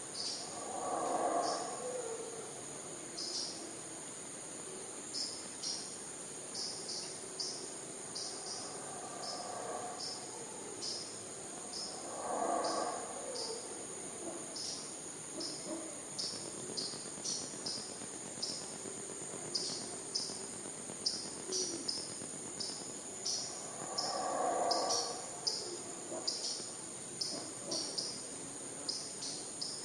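A steady, high-pitched drone of tropical insects, with many short repeated chirps over it. Three low, hoarse calls of about a second or two each come roughly ten seconds apart: near the start, mid-way and near the end. These are distant howler monkey calls.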